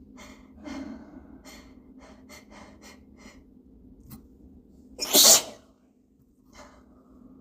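A person's hitching, catching breaths building up to a sneeze, then one loud sneeze about five seconds in, followed by a short breath.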